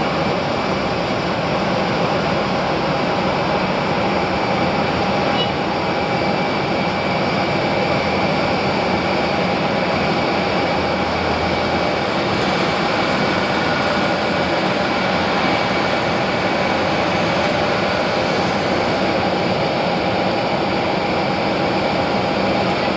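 Boeing 737 jet engines running at taxi power: a steady rush of engine noise with a faint, even whine over it.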